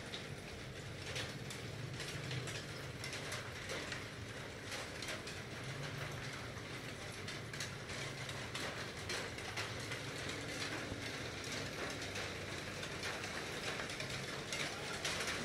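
Aquarium aeration: bubbles from an air stone rising and popping, a steady crackle of irregular small clicks over a low, steady hum.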